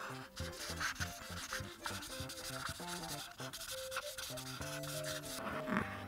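Coloring strokes rubbing and scratching back and forth across paper, under background music with a quick-moving melody.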